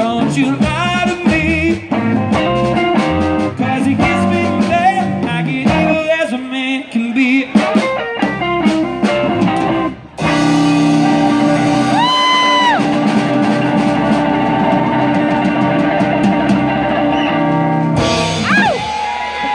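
Live rock band with two electric guitars, bass guitar, drum kit and a singer playing the close of a song. About ten seconds in the band hits a final chord that is held and rings out over a wash of cymbals, with a last cymbal crash near the end.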